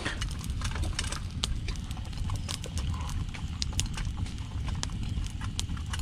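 Wood campfire crackling, with sharp irregular pops and snaps over a low steady rumble.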